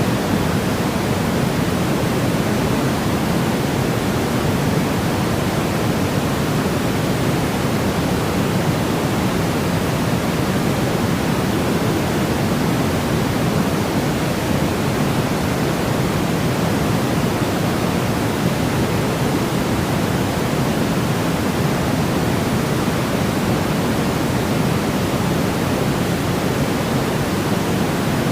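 Steady, unchanging white noise for soothing a baby to sleep: an even hiss weighted toward the low end.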